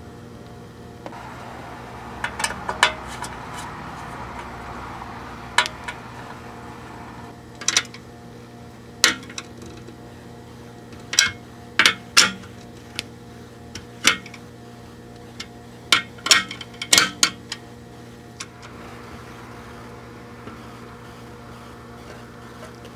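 Scattered sharp metallic clicks and taps of a hex socket driver and small screws and nuts against a steel amplifier chassis as tube sockets are screwed down, some in quick pairs, over a steady low hum.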